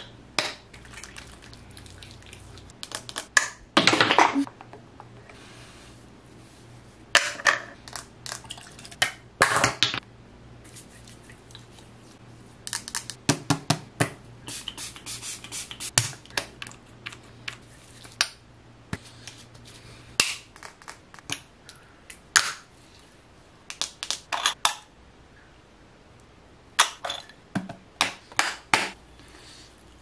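Close-up ASMR handling of skincare products: plastic bottles, pumps and caps clicking and tapping, with hands working product onto the skin, in irregular clusters of short, sharp sounds and one longer burst about four seconds in.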